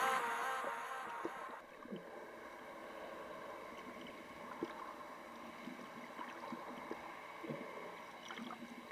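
The last of the background music fades out in the first couple of seconds. After that comes faint underwater ambience picked up by a submerged camera: a low wash of water with scattered small clicks and crackles.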